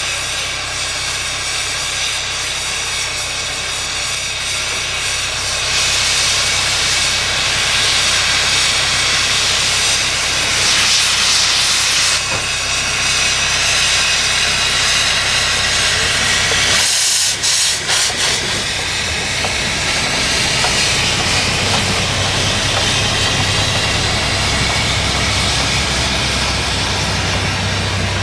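Loud, steady hiss of steam venting from the 1910 SLM Leslie-patent steam rotary snowplow Xrot d 9213, growing louder about six seconds in and breaking off briefly a little past halfway, over a low steady hum.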